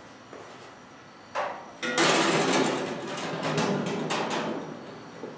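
Thin aluminum sheet panel being set onto an aluminum kayak hull: a couple of sharp knocks, then a few seconds of loud metallic clattering and wobbling from the sheet, fading near the end.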